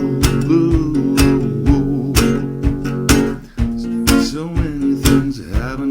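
Instrumental music, with no lyrics: guitar chords over a steady drum beat.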